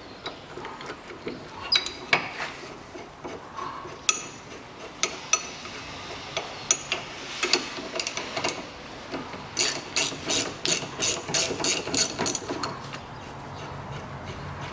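Ratchet wrench with a 19 mm socket undoing the nut on a steering tie rod end: scattered ratchet clicks, then a quick regular run of about four clicks a second for a few seconds past the middle.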